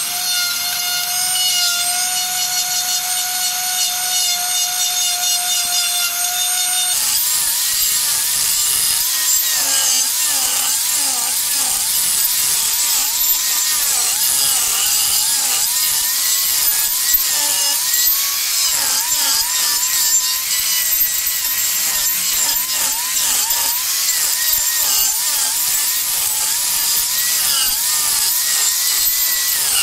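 Handheld electric rotary carving tool whining at a steady pitch as it works wood. About seven seconds in it gives way to an angle grinder grinding into rough wood, its pitch dipping and recovering again and again as the disc bites and eases off.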